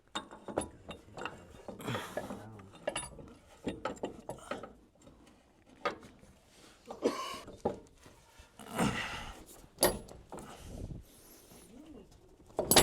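Irregular metal clicks, clanks and knocks as a front shock absorber with its lift spacer is forced and wedged back into its mounts in the truck's suspension, with a few louder scuffing bursts between them.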